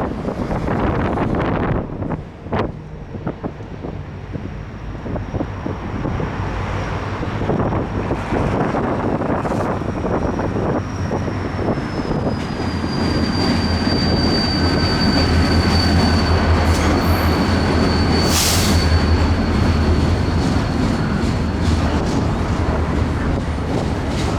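CN intermodal freight train rolling past, its wheels clicking over rail joints above a low rumble, with a thin, steady high-pitched wheel squeal that dips slightly in pitch about halfway through. The train grows louder in the second half.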